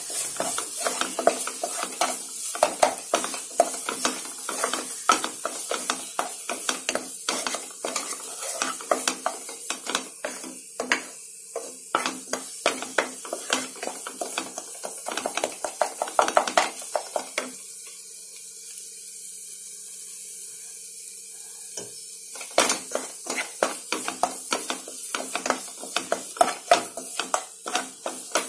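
Spatula scraping and knocking against the pan as a thick masala paste is stirred and sautéed in oil, with a faint sizzle underneath. The stirring stops for about four seconds past the middle, leaving only the sizzle, then starts again.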